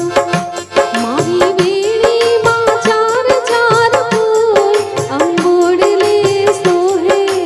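A woman singing a Gujarati song into a microphone, her melody gliding between held, ornamented notes, over a steady percussion beat and sustained accompanying tones.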